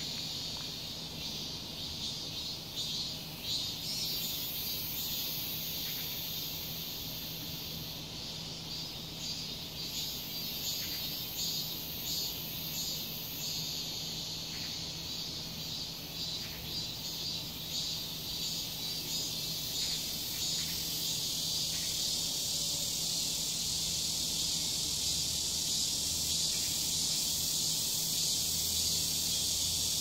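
A chorus of cicadas singing loudly in a tree. It pulses rhythmically for the first half, then settles into a steadier high buzz.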